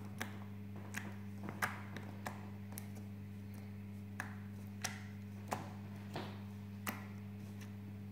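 Pink glitter glue slime poked with fingertips: each press gives a short sharp click or pop, about ten in all, roughly one every two-thirds of a second with a short pause partway. A steady low hum runs underneath.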